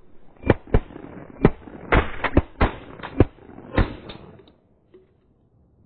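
Rapid shotgun fire from several guns, about nine sharp shots in under four seconds, some louder and closer than others, as hunters fire at incoming ducks. The sound cuts off abruptly soon after the last shot.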